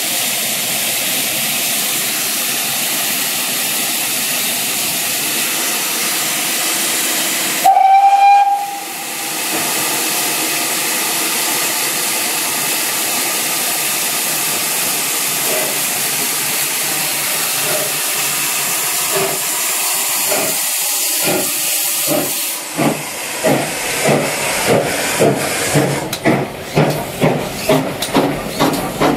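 GWR 6400 class pannier tank 6412 standing with steam hissing steadily. About eight seconds in, a loud blast of about a second on its steam whistle. About 23 seconds in, it starts its train away, with a regular beat of exhaust chuffs that carries on to the end.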